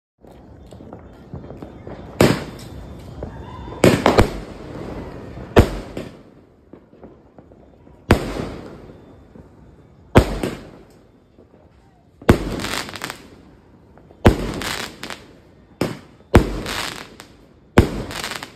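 Pegasus Fireworks 'Golden Time' 16-shot large-calibre aerial cake firing. Sharp bangs of shells come roughly every two seconds, one of them a quick double, and each trails off before the next.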